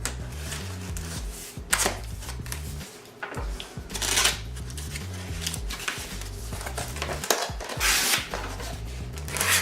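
Packaging rustling and crinkling in bursts as a box is opened and its contents handled, over background music with a steady bass line.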